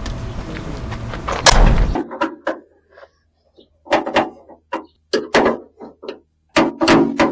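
A loud, sharp thump about one and a half seconds in as a plastic trim piece is pressed into place on the van's door, then scattered short knocks and clicks.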